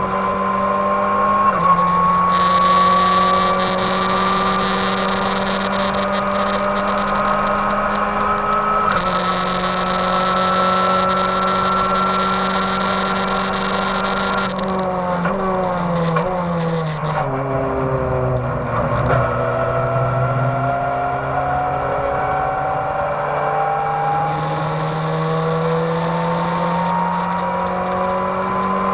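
Race car engine heard from inside the caged cockpit, running hard with its pitch climbing through the gears and upshifts about a second and a half in and about nine seconds in. Around halfway it drops through several downshifts under braking for a corner, then climbs again as it accelerates out. A loud hiss comes and goes over the top.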